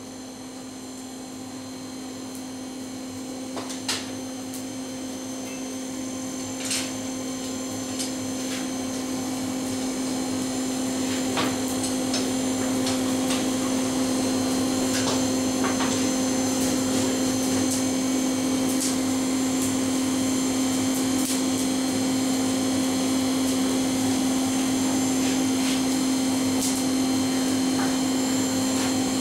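Steady hum of a motor-driven air blower in a smithy, one constant low tone that grows louder over the first dozen seconds and then holds. A few sharp taps sound in the first half.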